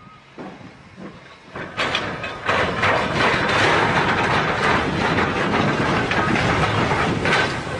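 Steam tank locomotive hauling a train of coaches passes close by. Its running noise swells over the first two seconds, then stays loud and steady with many short knocks running through it.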